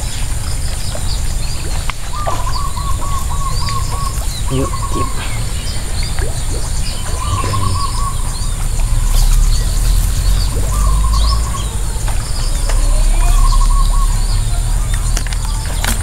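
Birds calling: one repeats a short trill of quick, even notes every few seconds, while others give brief high chirps. Under them run a steady low rumble and a thin, steady high tone.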